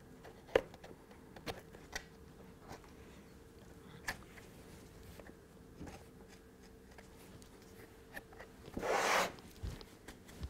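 Quiet handling of MDF kit parts, a few light taps and clicks, then near the end a short loud rustle of a damp cloth rubbed over the MDF to wipe away excess glue.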